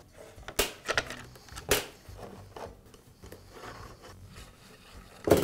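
Screws being undone with a T-handle driver on a plastic leaf-blower housing: a few sharp clicks and light scraping and rubbing of tool on plastic, with a louder knock near the end.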